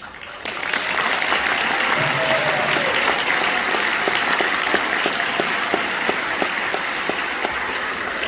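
Audience applauding, building up in the first half second and then holding steady.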